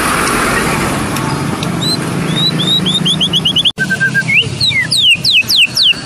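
White-rumped shama (murai batu) singing: first a quick series of short, repeated rising whistles, then, after a sudden break a little past halfway, a rapid run of high downslurred whistles. A steady low hum runs under the first part of the song.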